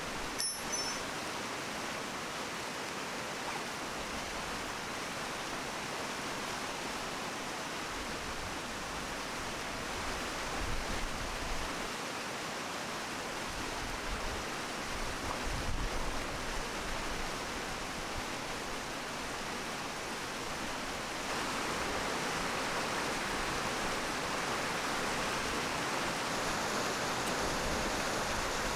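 Steady rushing of a mountain stream, even and unbroken, a little louder about two-thirds of the way through. A brief click is heard just at the start.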